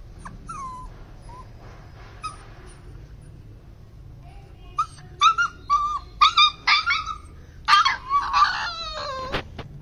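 Gaddi puppies whimpering: a few faint high whines at first, then from about five seconds in a quick run of loud, high, short yelping whines, one after another, crowding together near the end.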